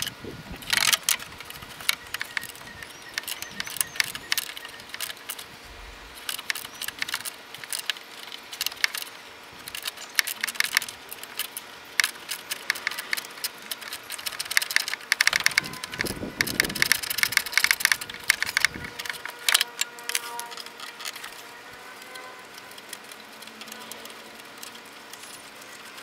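Bursts of quick metallic clicking and clinking as a driver works a 10 mm side bolt out of the condenser fan housing, with a couple of dull knocks; the clicking is thickest in the middle and thins out near the end.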